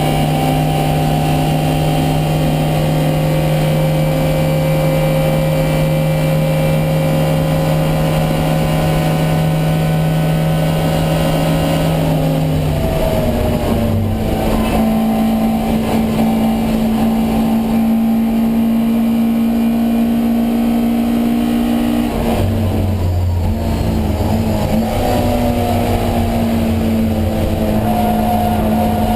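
Alfa Romeo Giulia 1600 race car's twin-cam four-cylinder engine heard from onboard under race power. It holds a steady high note for about twelve seconds, changes pitch with a gear change about twelve seconds in and again about twenty-two seconds in, then climbs in revs toward the end.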